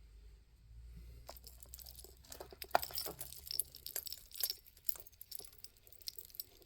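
Small beads clicking and clinking against each other as they are handled, in a quick irregular run of light ticks that thins out near the end.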